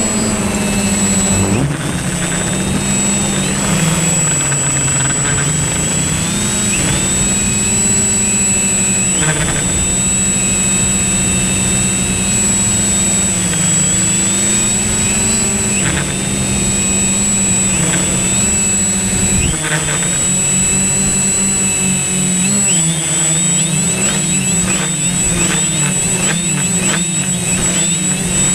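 Drone's electric motors and propellers whining steadily, the pitch wavering up and down as it manoeuvres, with quicker changes in the last few seconds.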